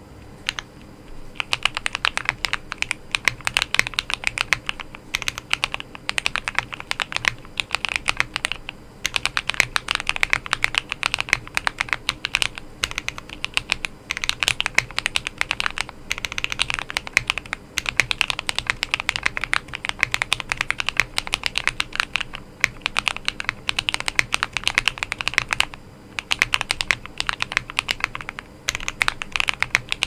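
Typing on a Hello Again M0110 custom mechanical keyboard with lubed Akko Silver linear switches and tape and foam mods: a fast, continuous run of key clicks, starting about a second in and broken by a few short pauses.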